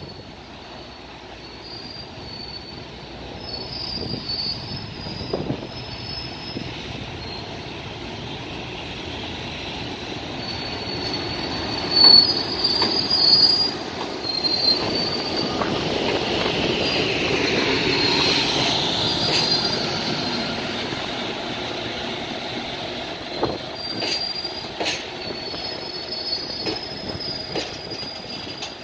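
JR Freight EF510 electric locomotive hauling a container freight train past at close range. The sound grows as the locomotive nears and is loudest around the middle as it passes. The container wagons then roll by with high wheel squeals and clacks over the rail joints.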